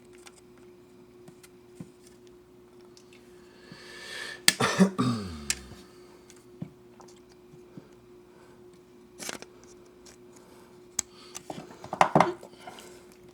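Plastic model-kit parts being snipped from their runners and handled: scattered sharp clicks and snips, loudest in a short clatter about four and a half seconds in and again near the end, over a steady low hum.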